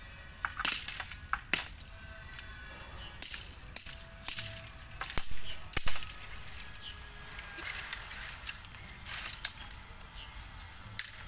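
Sharp chops and cracks of a blade striking bamboo canes, irregular strokes with pauses between them, the loudest about six seconds in.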